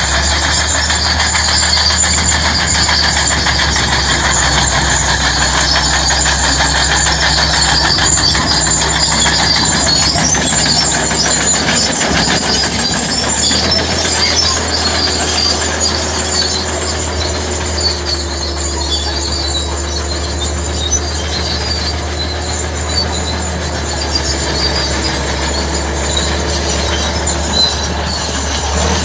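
Crawler tractor's diesel engine running steadily under load as it drags a deep single-furrow plough through the soil, with high, scratchy squeaking from the steel tracks above the engine's low hum.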